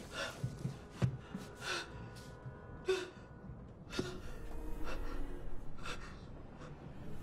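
A woman's short, gasping breaths, about one a second, with two sharp knocks, about a second in and about four seconds in. A low rumble comes in after about four seconds.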